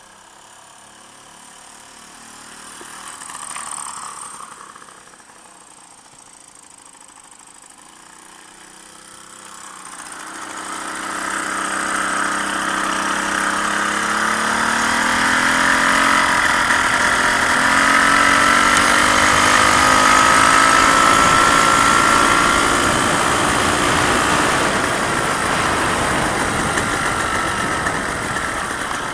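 VéloSoleX 2200 moped's small two-stroke engine, mounted over the front wheel and driving the tyre by a roller, running as it is ridden. It is faint at first, grows loud from about a third of the way in, and its pitch rises and falls with speed.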